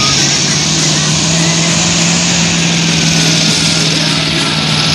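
Pulling tractor's diesel engine running hard under load, a steady, unchanging engine note under a broad hiss.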